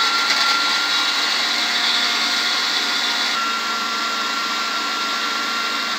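Hyundai plastic blender's motor running steadily at full speed, grinding onion with a little water into a liquid paste in the small grinder jar, then switched off at the very end.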